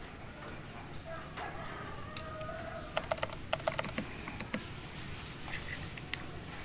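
Hard plastic parts clicking and clattering as a DJI Pocket 2's mount adapter is fitted onto a plastic neck-mount frame. A quick run of sharp clicks comes about three seconds in, with a few more near the end.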